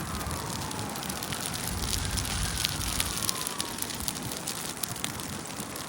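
Fire burning and crackling, with many sharp irregular pops over a steady rushing noise and a low rumble about two seconds in.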